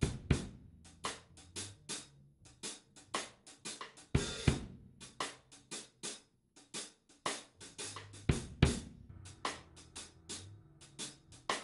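Outro music on a drum kit: a busy beat of hi-hat, snare and bass drum, with a cymbal crash about four seconds in and another near eight seconds.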